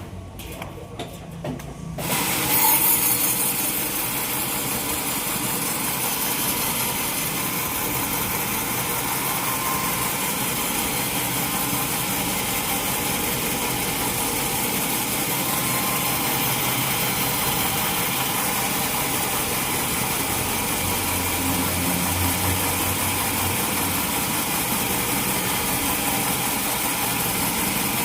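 Sawmill saw cutting through a mahogany log, a steady, even cutting noise. It starts abruptly about two seconds in, after a short quieter stretch with a few clicks.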